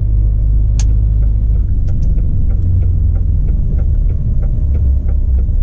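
Low, steady rumble of a DAF truck's diesel engine heard inside the cab, with the indicator relay ticking about three times a second and one sharper click about a second in.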